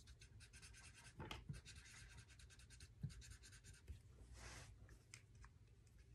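Faint taps and short scratches of a felt-tip Crayola marker dabbing a row of dots onto paper.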